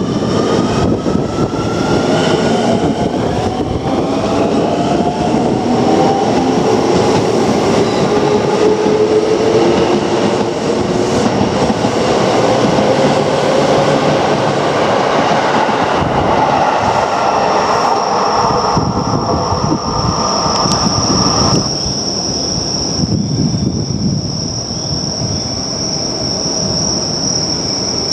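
Keio Line electric train running on the rails, its motors whining in tones that rise slowly in pitch as it picks up speed. A steady high-pitched squeal joins about two-thirds of the way in, and the overall sound eases slightly soon after.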